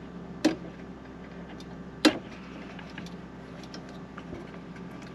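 Two sharp clicks, about a second and a half apart, with small faint ticks in between, as plastic connectors are worked loose from the back of a car head unit, over a faint steady hum.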